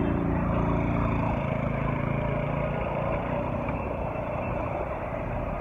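A motor vehicle's engine running close by on the road, its note dropping about a second in and fading, over a steady rumble of traffic.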